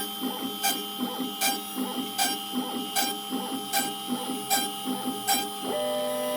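DIY CNC router's stepper motors driving the machine through a run of moves: a sharp click about every 0.8 s over a fast, even chatter. Near the end the clicking stops and a steady whine of several held tones takes over.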